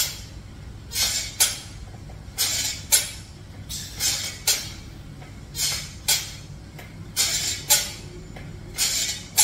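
A man breathing hard through weighted pull-ups: two quick, hissing breaths on each rep, a pair about every second and a half, over a low steady hum.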